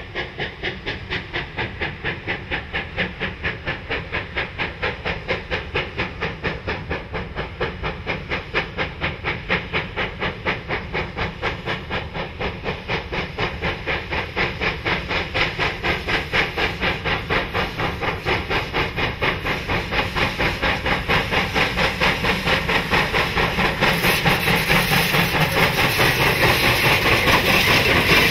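GMAM-class Garratt steam locomotive working steam, its exhaust beating about four times a second over a steady hiss. The beats grow louder as it approaches, and the hiss brightens near the end as it draws close.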